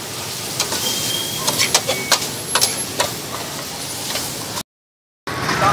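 Stir-frying in a wok over a gas burner: a metal spatula clanks and scrapes against the wok several times over a steady sizzle of frying greens and meat. The sound breaks off abruptly near the end.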